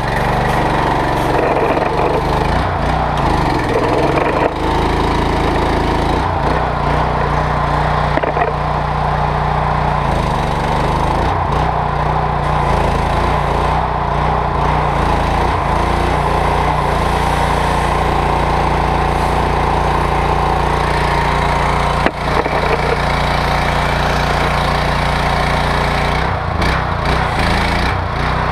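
Loncin G420 420cc single-cylinder petrol engine of a petrol pressure washer running steadily, freshly started and on half choke, with one brief dip in level about three-quarters of the way through.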